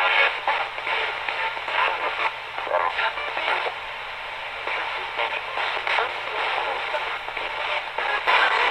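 Radio Shack 20-125 ghost box sweeping the FM band: choppy snippets of broadcast voices and static, chopped every fraction of a second, played through a small amplifier.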